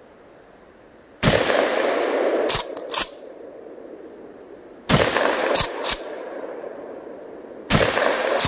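Three 12-gauge shotgun blasts from a Kel-Tec KS7 pump-action bullpup, about three and a half seconds apart, each echoing off the surrounding woods. After each of the first two shots the pump is racked, giving two sharp clacks in quick succession.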